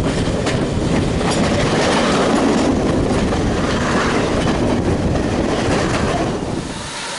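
A train running on the rails, its wheels clattering over the rail joints, with a faint squeal; the noise drops away sharply just before the end.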